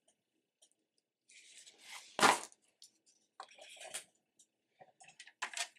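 Sheet of paper stock being handled and laid flat on a cutting mat: a rustling slide of paper, a single thump a little over two seconds in, then light rustles and small taps as the sheet is smoothed down.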